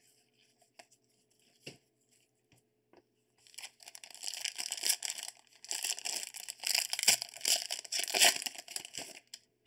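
A few light taps of cards being handled, then from about three and a half seconds in the foil wrapper of a Panini Limited football card pack is crinkled and torn open, stopping shortly before the end.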